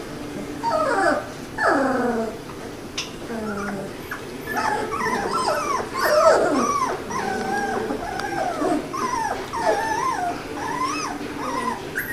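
A litter of three-week-old poodle puppies whimpering and squeaking: many short, high whines that rise and fall and overlap. They come sparsely at first and crowd together from about the middle on.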